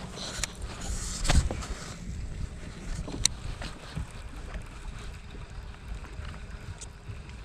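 Wind rumbling on the microphone over water lapping at a small fishing boat, with a few sharp knocks and clicks, the loudest about a second and a half in.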